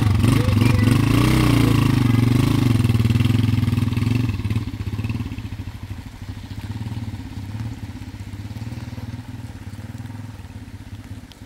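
Small motorcycle engine pulling away and riding off, its pitch briefly rising and falling as it moves off. It is loud for about four seconds, then drops and fades as the bike draws away.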